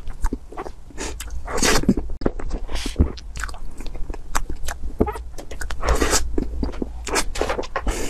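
Close-miked eating of whipped-cream layer cake: mouth sounds of chewing and smacking on soft cream, with many sharp clicks, and a spoon scooping through the cream.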